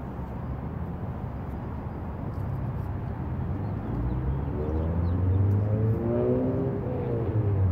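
Steady outdoor rumble, then from about four seconds in a motor vehicle engine grows louder, its pitch rising and then falling as it accelerates.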